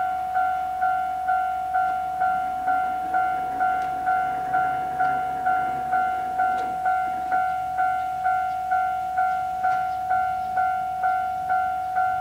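Japanese railway level crossing warning bell ringing steadily, a little over two rings a second.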